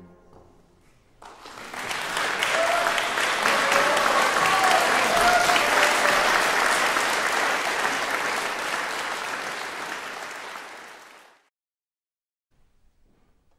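Audience applauding after a string quartet's closing chord. The chord's echo dies out first, and the clapping starts about a second in and swells quickly. It fades and cuts off near the end.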